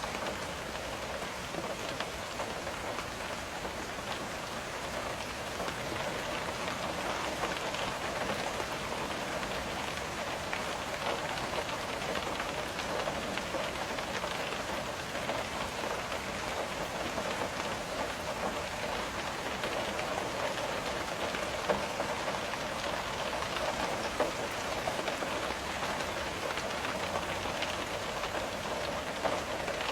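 Steady rain, drops tapping on window glass, with an occasional louder drop.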